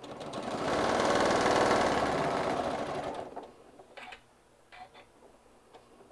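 Janome M7 Continental sewing machine stitching a seam: it speeds up, runs fast for a couple of seconds, then slows to a stop a little over three seconds in. A few faint clicks follow.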